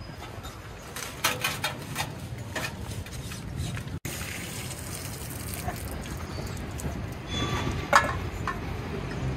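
Scattered sharp clicks and knocks of hands-on repair work, a quick cluster a second or two in and one loud knock near the end, over a low steady background noise.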